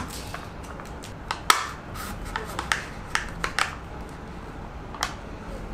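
A plastic straw and the sealed plastic cup of a tapioca milk tea being handled, with a run of sharp plastic clicks and crinkles, the loudest about a second and a half in, as the straw is pushed into the cup.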